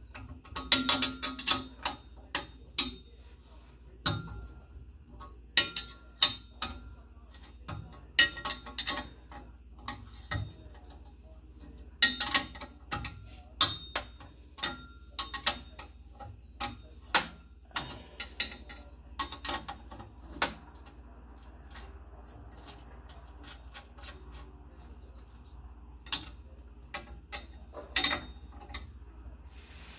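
Hand ratchet wrench clicking in short fast bursts on exhaust flange nuts, with the clink of metal tools between strokes.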